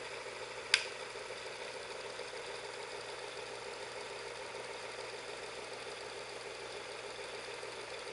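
Visible V8 model engine's crankshaft and rotating assembly spinning steadily during the run-in of a new crankshaft, giving an even mechanical whir. A single sharp click sounds about a second in.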